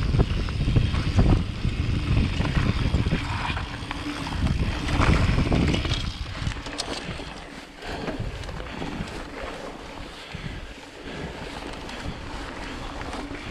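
Wind buffeting the microphone and a mountain bike's tyres and frame rattling down a rough downhill trail, with scattered sharp knocks from bumps. It is loudest in the first half and eases off after about six seconds.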